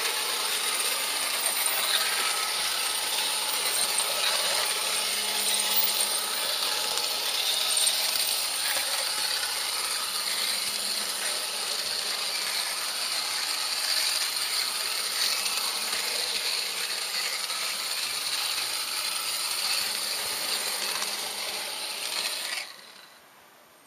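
HO-scale model train running, picked up close from the camera riding on it: a steady, dense mechanical rattle of its gears and wheels on the track, which cuts off abruptly near the end.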